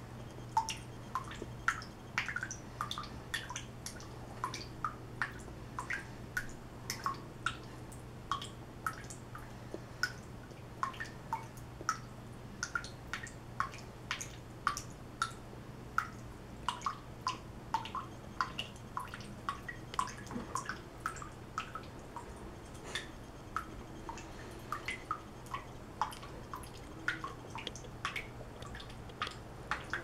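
Water dripping from a bathroom faucet into the sink basin: a quick, uneven run of small plinking drops, several a second.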